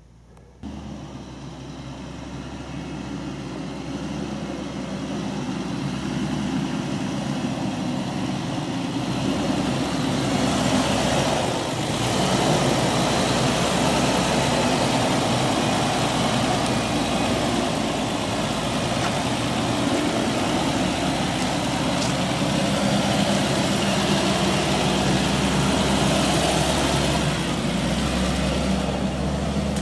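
Nissan Patrol 4WD's engine running at low speed as it drives up a dirt track and slowly past close by, with tyre noise on the dirt and gravel. The sound starts abruptly about half a second in, grows louder over the first ten seconds as the vehicle approaches, then holds steady.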